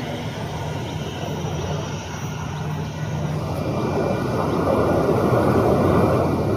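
Jet airliner's engines passing, a rushing roar over a steady low hum that builds to its loudest near the end.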